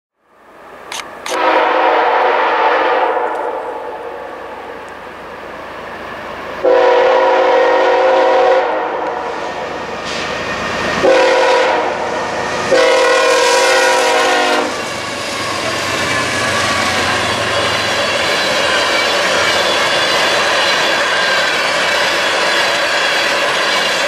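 Air horn on the lead GE diesel locomotive of a freight train sounding the grade-crossing signal: long, long, short, long. The locomotives then pass and a string of empty taconite ore cars rolls by at about 50 mph, with steady wheel clatter.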